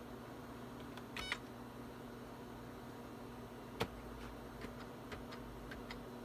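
Computer keyboard keys being pressed: a short rattle of key clicks about a second in and one sharp keystroke near the middle, over a steady low electrical hum.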